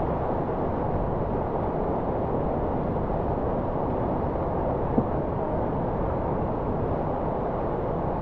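Whitewater rushing steadily through a play hole on a whitewater course, an even noise with one small click about five seconds in.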